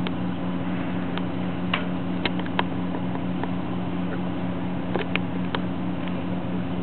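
A steady low mechanical hum with a few sharp clicks scattered through it.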